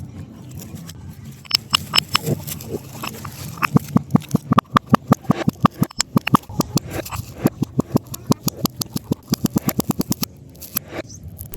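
Rapid series of sharp crunches, about four or five a second, starting about a second and a half in and stopping near the end.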